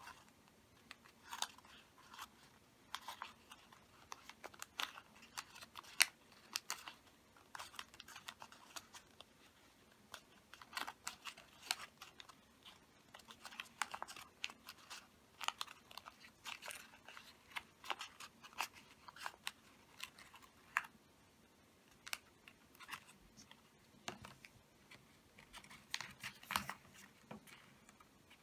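Origami paper crinkling and crackling as fingers press and shape its folds into a bowl: many short, irregular crackles with a brief lull about three quarters of the way through.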